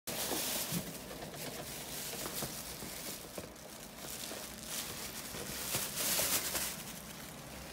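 Plastic bag crinkling and rustling as it is shaken out, loudest near the start and again about six seconds in, with a few light ticks between.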